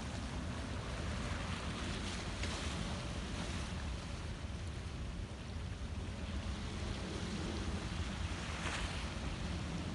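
Small sea waves washing against a sloping concrete seawall, with a hissing surge about two seconds in and another near the end, over a steady low rumble of wind on the microphone.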